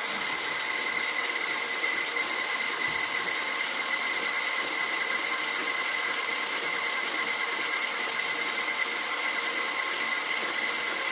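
1940s South Bend 13-inch lathe running with a steady whine from its square-cut gearbox gears, with a faint regular ticking over it.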